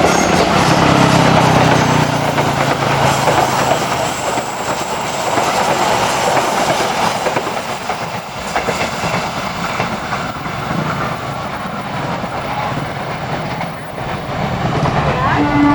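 A train passing close by: steady rolling noise of steel wheels on the rails with a clickety-clack of the wheels over rail joints, easing somewhat in the middle. Just before the end a train horn starts to sound.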